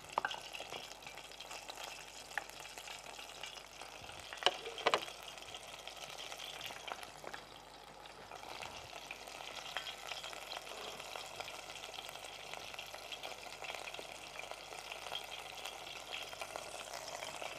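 Batter-coated chicken strips deep-frying in hot oil in a stainless steel pot: a steady sizzle and crackle, the sound that shows the oil is hot enough for the coating to set on the chicken. A few sharper clicks stand out about four to five seconds in.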